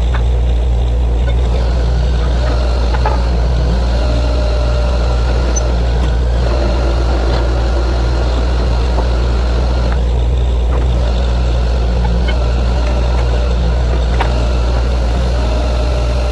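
Truck-mounted borewell drilling rig running: a loud, steady heavy-engine drone with a deep hum, and a few faint clicks.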